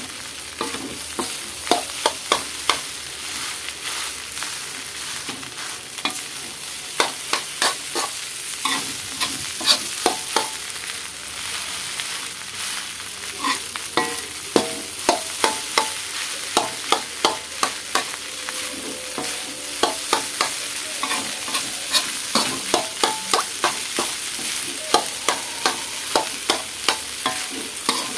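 Egg fried rice frying with a steady sizzle in an aluminium wok while a metal spoon stirs and scrapes it, clinking sharply against the wok many times.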